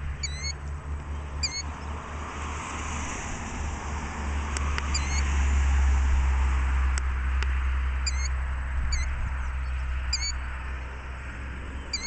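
Killdeer giving a run of short, sharp alarm calls, about a dozen spaced through, the calls of a parent bird defending its nest. A steady low rumble runs underneath and swells in the middle.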